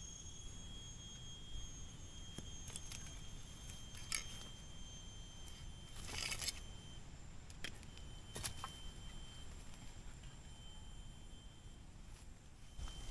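Steady high-pitched whine of a forest insect, one thin tone that drops out for moments and returns. Short rustles and clicks of hands working in dry leaf litter come and go over it, the longest about six seconds in.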